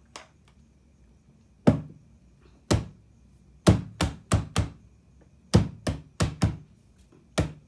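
A series of about ten sharp knocks, first single ones about a second apart, then quick runs of three or four.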